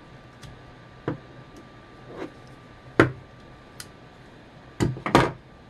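Scattered sharp clicks and small knocks of a folding multitool knife prising at a hard plastic gear and of the plastic actuator parts being handled. They come about once a second, with the loudest click about three seconds in and a quick pair of knocks near the end.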